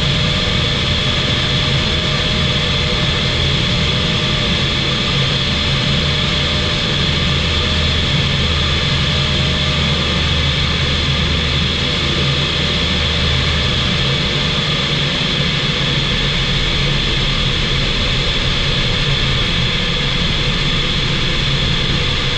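Steady drone of a CZAW SportCruiser light aircraft in flight, its Rotax 912 engine and propeller running continuously with a constant high whine over the low hum. The low part of the engine note drops a little about two-thirds of the way through.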